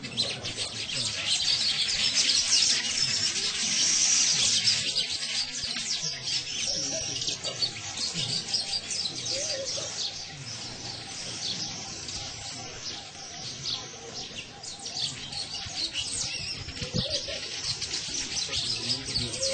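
Many small birds chirping and twittering rapidly in the trees, a dense overlapping chatter that is busiest in the first few seconds.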